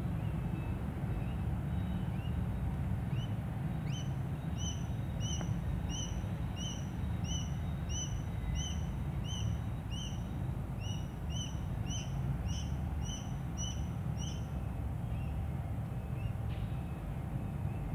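A bird chirping over and over, short calls at about one and a half a second that start a few seconds in and stop near the end, over a steady low rumble.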